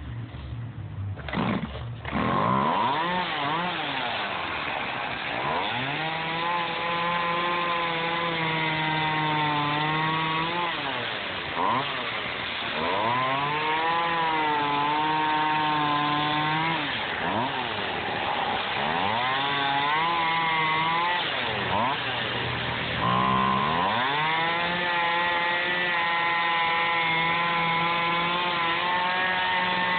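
Gas chainsaw running while cutting through a block of expanded polystyrene foam, its engine speed rising and dropping again and again through the cuts. It picks up about two seconds in after a brief quieter moment.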